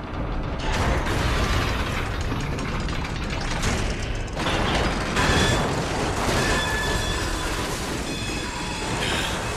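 Animated sound effects of a giant chain-and-gear mechanism, grinding and ratcheting. It starts loud less than a second in, with thin high squealing tones from about halfway.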